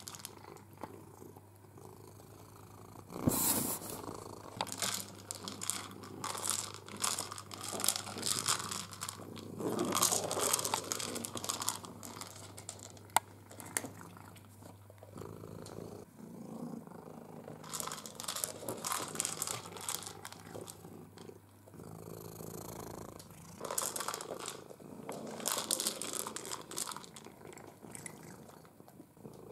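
A domestic cat purring steadily, close by, with irregular bursts of knocking, rattling and rustling as it noses a plastic ball feeder across a wooden floor.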